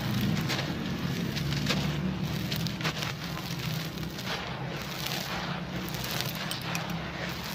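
Hands crumbling and rubbing dry, dusty sand-cement chunks and powder in a metal bowl: a crunchy, gritty crackle of many small ticks as the grains break and slide.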